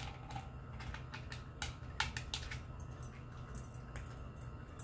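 Irregular light clicks and crunches from a cat eating dry kibble at a plastic peg-board food puzzle, with pieces knocking against the plastic and the cat chewing. The clicks bunch up about two seconds in, over a steady low hum.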